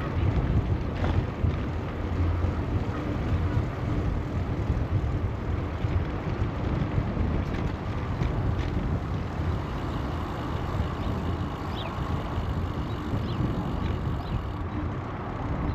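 Steady low rumble of wind on the microphone and tyre noise from a bicycle being ridden along a trail, with a few faint high chirps in the last few seconds.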